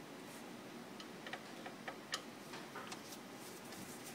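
Small irregular clicks and taps of plastic and metal parts being handled by hand inside a copier's photosensitive drum unit, over a steady hiss.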